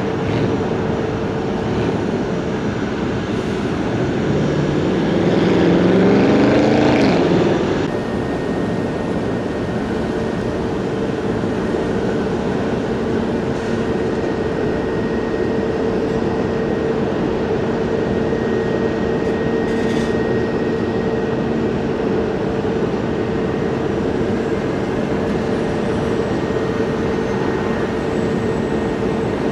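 Airliner jet engines running with a steady whine and rush. A few seconds in the pitch rises and the sound swells, then it drops back abruptly; this fits an airliner spooling up for its takeoff roll.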